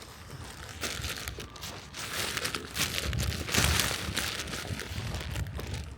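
Irregular crinkling and rustling close to the microphone, with an uneven low rumble, loudest in the middle: handling or clothing noise rubbing the mic.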